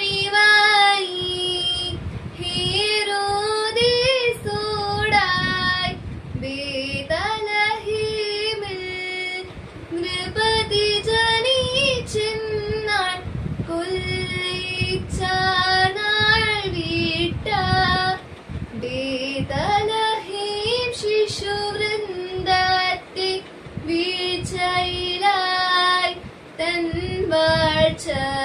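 A girl singing a Malayalam liturgical hymn of the Malankara Syriac Orthodox Nativity service, solo and unaccompanied: a slow melody of held notes with ornamented turns between them.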